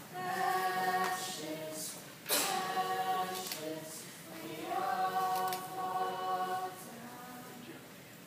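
Recorded choir-like voices singing three phrases of long held notes, each about two seconds, with a few sharp hits between the phrases.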